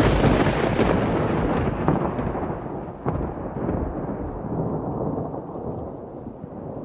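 A thunderclap that starts loud and rolls on as a long rumble. A second sharp crack comes about three seconds in, then the rumble slowly dies away.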